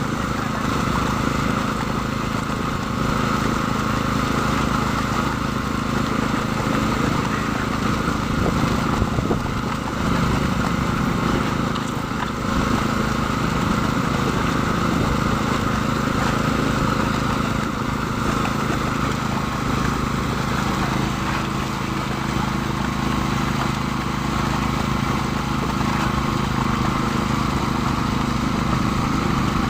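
Engine of the concrete-pouring machinery running steadily at a constant speed.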